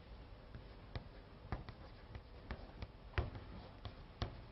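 A series of about eight light, irregular taps and clicks over quiet room tone.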